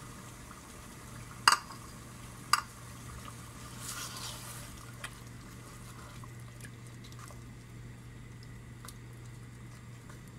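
A wooden spoon stirring chicken curry in a metal pot: soft, wet stirring with faint taps against the pot. Two sharp knocks against the pot come about a second and a half in and again a second later.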